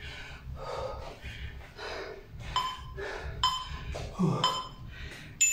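A person breathing hard from exertion, in short puffs about two a second, with a few brief squeaky gasps in the second half.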